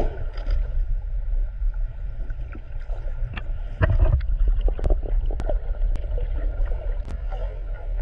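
Underwater audio through a camera housing: a steady low rumble of water moving past the camera, with a louder rush about four seconds in and a few sharp clicks in the second half.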